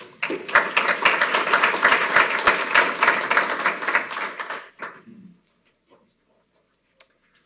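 Audience applauding with many people clapping at once for about four and a half seconds, then dying away quickly.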